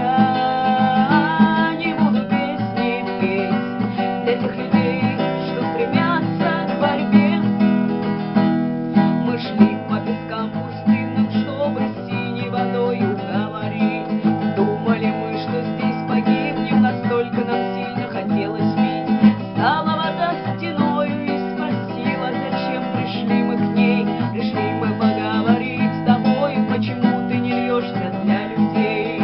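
Acoustic guitar music, strummed, playing steadily.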